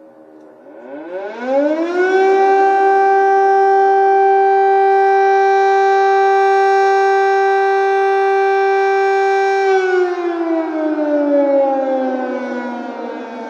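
Civil defence air raid siren sounding a warning of air attack. It winds up to a steady wail about two seconds in, holds that one pitch for about eight seconds, then slowly winds down near the end.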